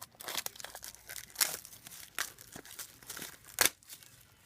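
Packaging around a trading-card tin being torn and crinkled by hand: irregular rustling and ripping, with two sharper rips about a second and a half in and near the end.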